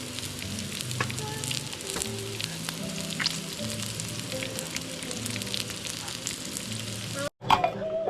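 Food sizzling and crackling as it fries in a pan, with many small pops, over soft background music. The sound cuts off abruptly near the end.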